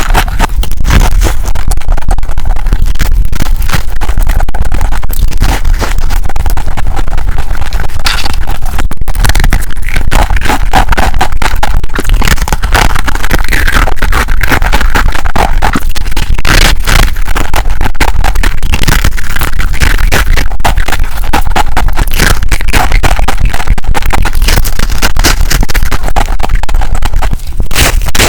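Freezer frost being eaten: continuous loud, close crunching and crackling of the packed frost.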